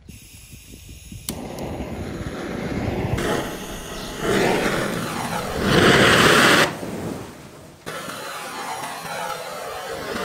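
A tightly packed bundle of about 600 sparklers, the fuel of a homemade rocket, lit by a butane torch and burning with a steady hiss as it sprays sparks out of the nozzle. The hiss jumps in level and cuts abruptly a few times, loudest around six seconds in.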